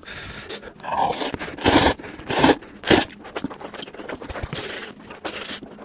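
A person slurping spicy stir-fried instant noodles up close, then chewing. There are three short, loud slurps in the first half, then quieter mouth noises.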